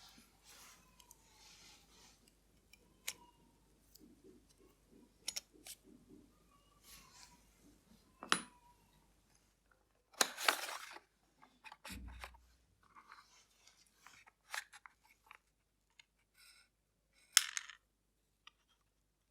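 Small sharp clicks and short scrapes of watchmaker's tools handling a wristwatch as it is taken apart, with a dull thump about twelve seconds in.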